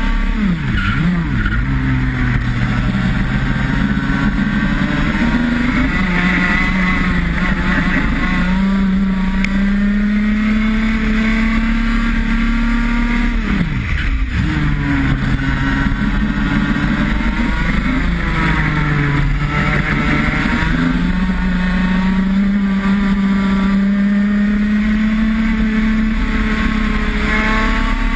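IAME X30 125cc two-stroke kart engine at racing speed: its pitch climbs slowly as it pulls along the straights and drops sharply twice, about a second in and about halfway through, before pulling back up, as the kart slows for corners.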